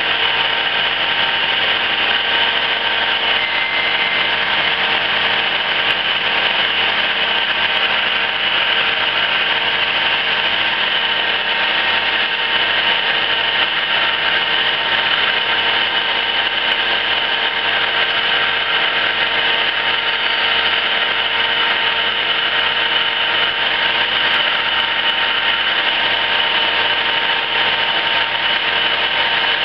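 1974 Emi-Mec E Sprint plugboard automatic lathe running, turning small parts: a steady mechanical hum made of several steady tones, with no distinct knocks or pauses.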